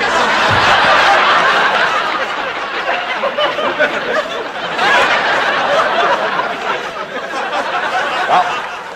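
Audience laughter, loud at first, swelling again about halfway through and dying away near the end.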